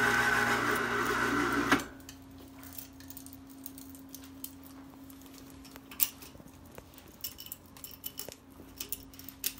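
Winch motor running steadily, then stopping abruptly with a clunk a little under two seconds in. After it comes a low steady hum and scattered light metallic clinks of the chain and clamps being handled.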